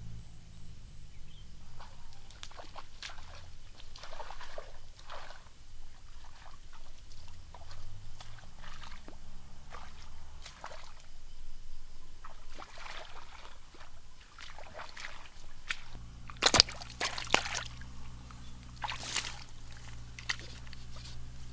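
Scattered soft rustles and steps through wet grass and mud, then a few loud splashes near the end as a split-bamboo tool strikes shallow muddy water.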